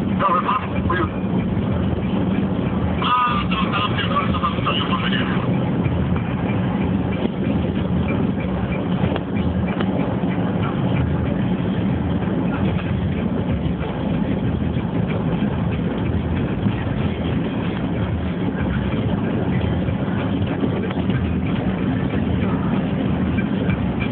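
Steady engine and road noise of a car driving, with a constant low hum. A short higher-pitched sound breaks in twice within the first five seconds.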